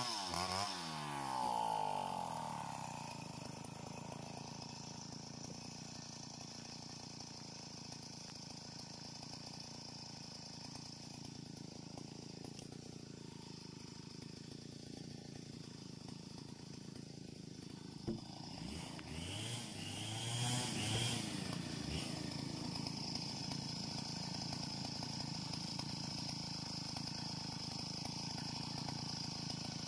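Two-stroke chainsaw coming off full throttle out of a rip cut in a log: the engine note falls to idle over the first couple of seconds, then idles steadily. About 18 seconds in there is a knock, then the saw is revved up briefly a few times before idling on.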